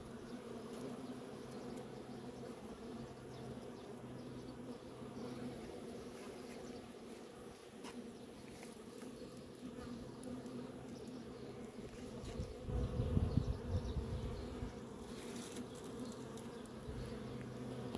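Honeybees humming steadily in an open hive. A louder low rumble comes in about two-thirds of the way through.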